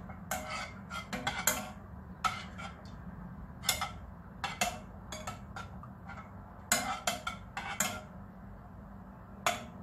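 Metal spoon stirring melted butter and honey in a saucepan, clinking and scraping against the pan in irregular strokes, with a steady low hum underneath.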